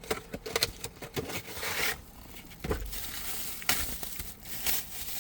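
Packaging of a new cabin air filter being handled: plastic crinkling and rustling with irregular clicks and taps.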